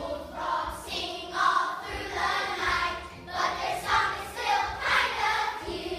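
A large group of children singing together in short, loud phrases.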